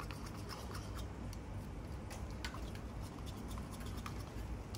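A metal spoon scraping and clicking against a bowl as minced pork is stirred and tossed with dressing, in quick irregular strokes over a steady low hum.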